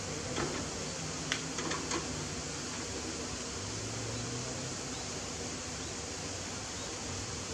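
Steady hiss with a faint low engine drone that fades in and out, and a few light clicks about one and a half seconds in.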